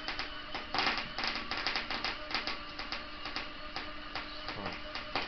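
Arc welding: the welding arc crackles in dense, uneven clicks, a little louder about a second in, over a steady hum.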